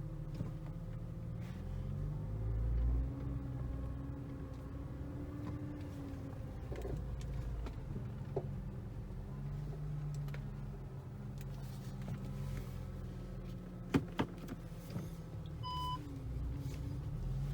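2012 Audi S4 B8 running at low speed while being steered, with a low hum and slow wavering creaks from the front steering or suspension, a fault that new strut mounts and upper control arms have not cured. Two sharp clunks come about fourteen seconds in, followed shortly by a brief electronic beep.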